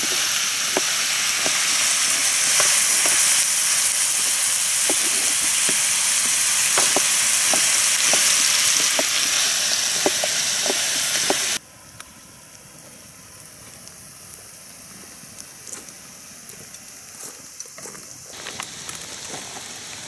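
Onion and carrot frying in a pan on a portable gas stove: a steady, loud sizzle, with light taps of a knife cutting tomatoes on a wooden board. A little past halfway the sizzle cuts off suddenly, leaving only faint taps over a quiet background.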